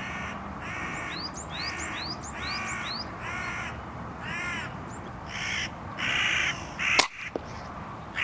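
Hooded crow calling with a series of harsh caws, one after another for about six seconds. About seven seconds in comes a single sharp crack, the loudest sound.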